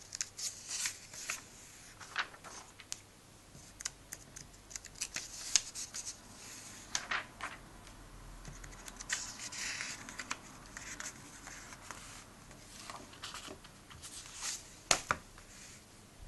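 Paper pages of a comic book being turned and flattened by hand: irregular crisp flicks and short rustles of paper, with a longer rustle about nine seconds in.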